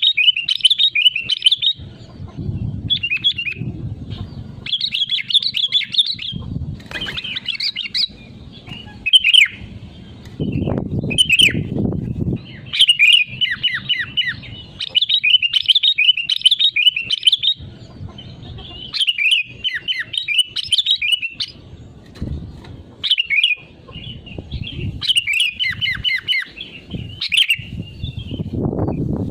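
Sooty-headed bulbul (kutilang) singing vigorously: repeated bursts of quick, bright chattering phrases with short gaps between them, mixed with low muffled rustling between some phrases.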